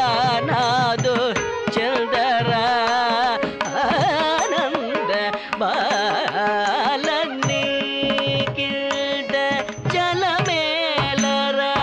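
Carnatic classical music for Bharata Natyam dance. An ornamented melody bends and wavers in pitch over a steady drone, with drum strokes.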